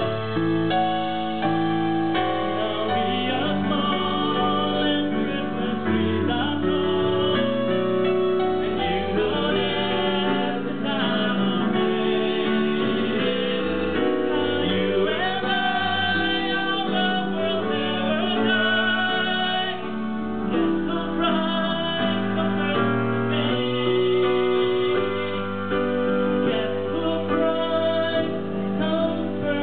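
A man singing live into a microphone, accompanied by a portable electronic keyboard playing held chords over a stepping bass line.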